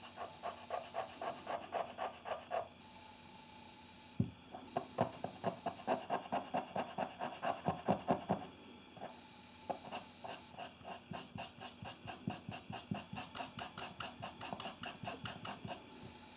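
Back-and-forth scrubbing on a Konica EFJ compact film camera being cleaned, about four strokes a second, in three runs broken by short pauses about three and nine seconds in.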